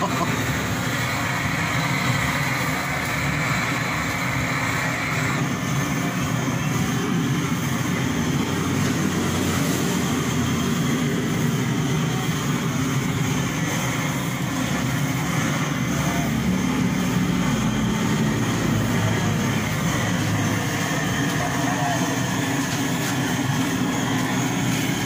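Pressurised brass kerosene blowtorch burning steadily as its flame singes the hair off a goat carcass.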